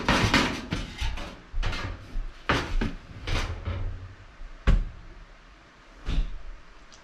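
Thin sheet-metal back panel of an electric range being handled and set aside against a cabinet: a string of rattles, scrapes and knocks about once a second, the sharpest about two-thirds of the way through.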